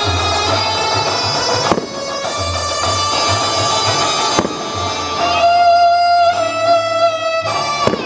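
Instrumental background music with long held melodic notes, broken by a few sharp cracks.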